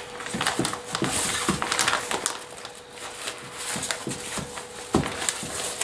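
Clear plastic sheeting crinkling and rustling as cardboard firecracker packets are handled and set down, with several small sharp knocks of the boxes on the wooden stool.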